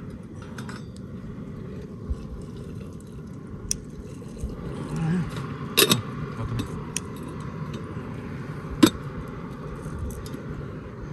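Metal teapot and utensils clinking now and then while tea is brewed: a few sharp metallic clinks, the loudest about six and nine seconds in, over a steady low background rumble.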